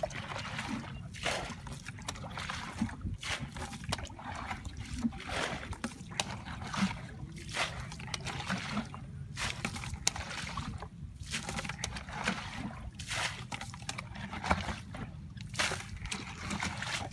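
Shallow muddy water splashing and sloshing in irregular strokes as hands grope through it to catch fish by hand, over a low steady rumble.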